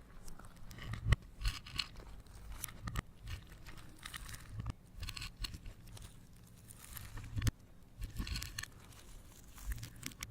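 Slime being squished and stretched by hand, with irregular bursts of crackling and crunching and soft low thumps, the sharpest about a second in.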